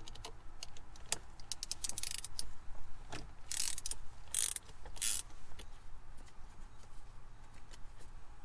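A 12 mm socket ratchet clicking in four short strokes between about two and five seconds in, along with scattered metal clicks, as the nut and bolt holding the shifter to the shifter linkage are undone.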